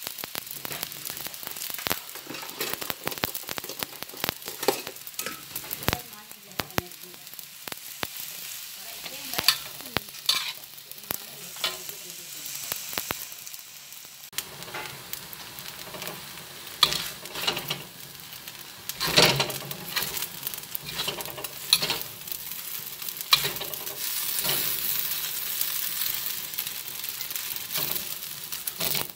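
Rice vermicelli sizzling in a hot wok as it is fried, stirred and tossed with a metal spatula that scrapes and knocks against the wok. The hiss is steady, with frequent sharp scrapes and clicks, a few of them louder.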